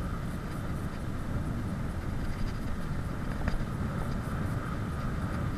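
Wind rushing over the microphone of a bicycle speeding downhill: a steady low rumble.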